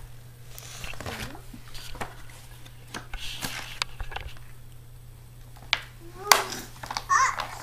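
A toddler handling a picture book on a wooden floor: scattered light knocks, taps and rustles, with a few brief soft vocal sounds from the child, over a low steady hum.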